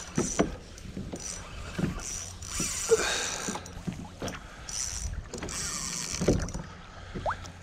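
Water lapping and slapping against a plastic kayak hull, with knocks and short rattling bursts from a fishing rod and reel being worked while a fish is played on light line. A brief rising squeak comes near the end.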